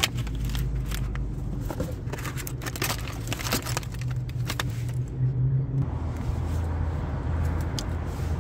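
Flashlight packaging being handled and opened: a run of clicks, crackles and scrapes for the first six seconds or so, over a steady low hum.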